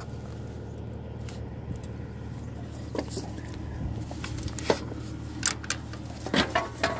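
Ford 9N tractor's four-cylinder flathead engine idling steadily, with sharp clicks and rattles of the controls being handled, more of them in the second half.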